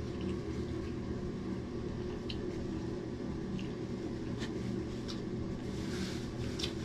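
People eating with their hands and chewing: scattered short wet smacks and clicks of mouths and fingers, over a steady low hum.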